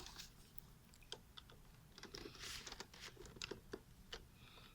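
Faint, irregular clicks and taps of a small flat screwdriver working the plastic release catch on the LG 24M37H-B monitor stand's hinge, freeing the hinge from the base.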